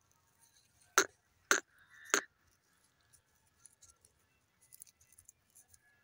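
Grey francolin foraging at close range: three short, sharp clicking sounds about half a second apart, followed by a few faint ticks.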